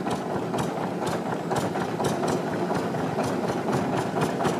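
Motor of a wooden longboat running steadily under way, with a fast, even clatter.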